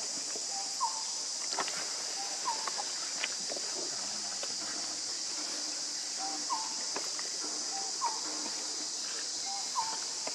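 Steady high-pitched drone of insects. Over it, a short two-note call repeats about every second and a half, with a pause in the middle, along with scattered small crackles and clicks.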